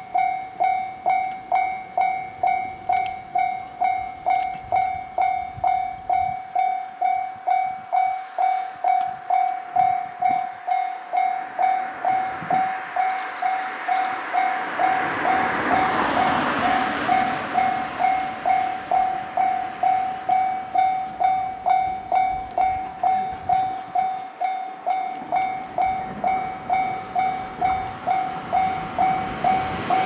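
Japanese railway level-crossing alarm ringing its electronic warning bell, a single repeated tone at about two and a half strikes a second. A rushing noise swells and fades in the middle.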